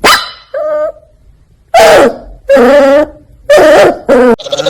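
A dog giving a series of loud whining cries: a sharp first one, a short quieter one, then three longer cries about a second apart.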